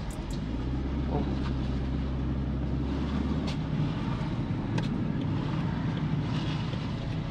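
Honda Fit heard from inside the cabin while creeping in slow traffic: a steady low engine and road hum, whose low note shifts about three and a half seconds in.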